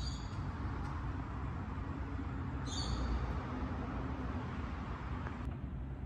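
Steady low rumble of distant motor traffic, with two short high bird chirps, one at the start and one just under three seconds in.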